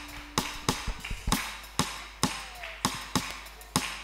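A steady beat of sharp percussive hits, a little more than two a second, without the full band playing.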